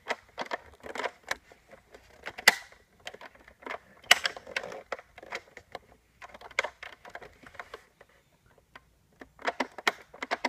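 Irregular plastic clicks and clatters from a Nerf Rival Zeus MXV-1200 blaster and its magazine being handled while foam balls are loaded, with two sharper snaps about two and a half and four seconds in. The loading is proving fiddly.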